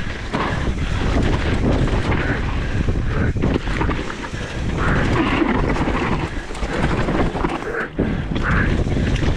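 Mountain bike descending a rough trail at speed, heard from a camera on the bike or rider: wind buffeting the microphone over a constant rumble and many short knocks and rattles from the tyres and bike on the dirt.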